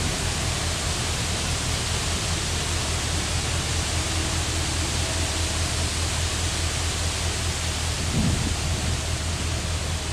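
Low, steady drone of a passing cargo ship's diesel engine under an even rushing hiss of wind and water, with a brief wind buffet on the microphone about eight seconds in.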